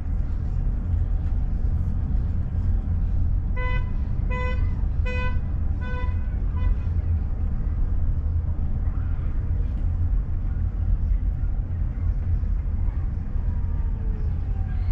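Car driving with a steady low road and engine rumble. About four seconds in comes a run of six short, evenly spaced beeps on one pitch. A faint falling tone follows near the end.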